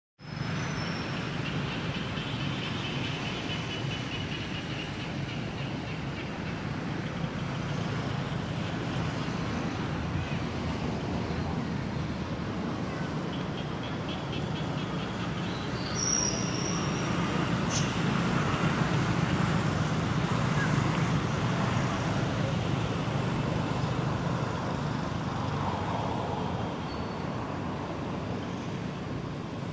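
Steady outdoor background rumble with hiss, a little louder past the middle, with a few faint high calls now and then.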